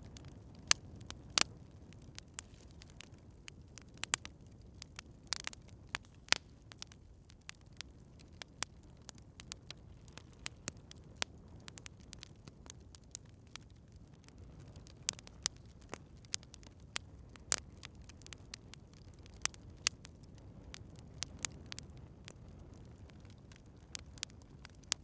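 Campfire crackling: sharp, irregular pops and snaps, some much louder than others, over a steady low background of the burning fire.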